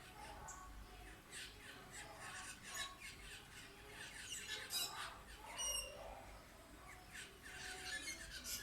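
A group of wild birds calling busily, with many short squawks and chirps overlapping one another. One clear whistled note stands out about six seconds in.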